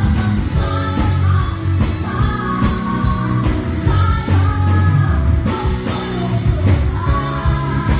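Live band playing an upbeat rock-style worship song, with a singing voice over drums, heavy bass and electric guitar.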